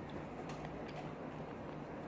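Faint, scattered wet clicks of mouth chewing and lip smacking over a steady low hum.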